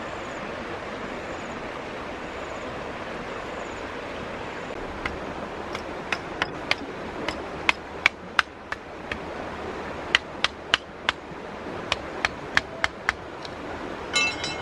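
Steady wind-like outdoor noise. From about five seconds in, a run of about twenty sharp, irregular clicks or taps, two to three a second, then a brief ringing, pitched sound near the end.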